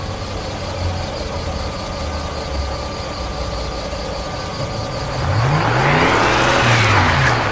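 Car engine running steadily, then revving up and back down about five seconds in, as the car sits stuck in mud.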